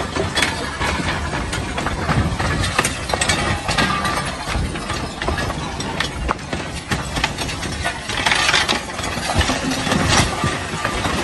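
Lava flow front advancing into burning buildings: a continuous low rumble thick with crackles and clinks, busier about eight seconds in.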